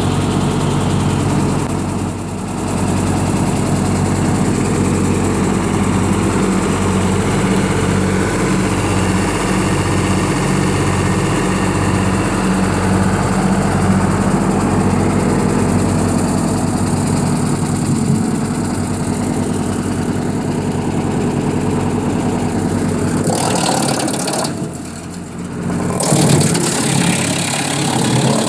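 Massey Ferguson 135 tractor engine running steadily, with a slow pulsing in its low note for a while. Near the end the engine note gives way, after a short dip, to a louder, noisier rush.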